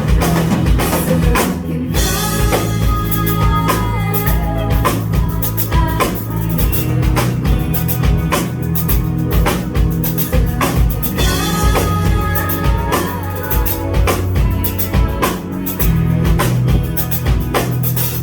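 Live indie rock band playing: a drum kit keeping a steady beat with kick and rimshot hits, under bass guitar and guitar.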